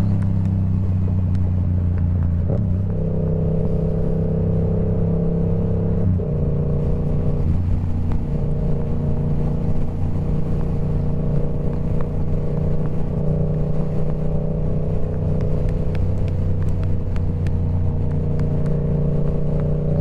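Yamaha R7 motorcycle with a TOCE full-system exhaust running at a fairly steady engine speed. The exhaust note holds one pitch, stepping slightly up or down a couple of times, about two and a half and six seconds in.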